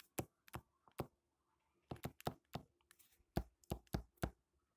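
A stylus tapping and clicking on a tablet's glass screen during handwriting: about a dozen sharp, irregular taps, some in quick clusters.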